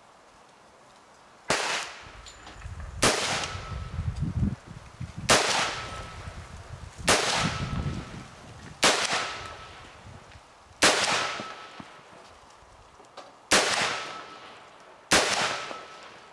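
M10 rifle, an AR-10-pattern 7.62 mm rifle, fired eight single shots at a slow, uneven pace, each loud report followed by a short echoing decay. The first shot comes about a second and a half in.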